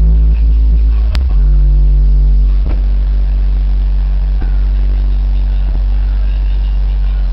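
Two 12-inch Alpine Type R car subwoofers, driven by a Powerbass 1000.1 amplifier, playing music with loud, heavy, sustained bass notes. The bass note changes about a second in and again near three seconds, and there is a sharp click about a second in.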